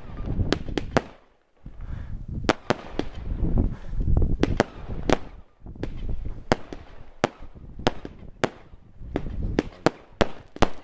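Aerial fireworks bursting: many sharp bangs at irregular intervals, with a low rumble between them.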